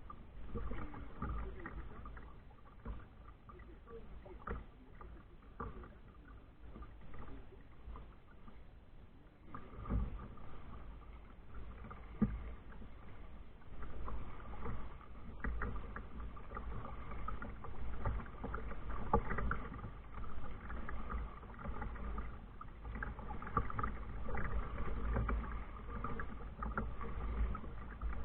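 Kayak being paddled: water splashing and lapping at the hull, with a steady low rumble underneath. It gets louder about ten seconds in.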